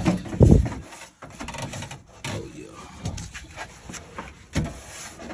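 Steel replacement floor pan being set into the cut-out floor and shifted into place: a heavy thump about half a second in, then scattered knocks and scrapes of sheet metal.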